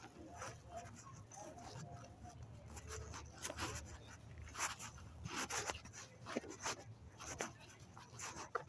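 Outdoor market background: a low steady rumble with irregular short clicks and rustles scattered throughout.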